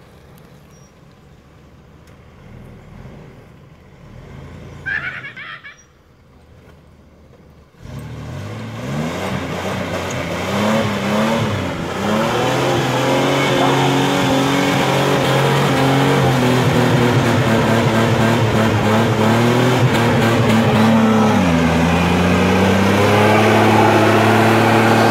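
Chevrolet S-10 pickup's engine revving hard about eight seconds in and held at high revs while the rear wheels spin in mud, with a short dip in revs near the end before it climbs again.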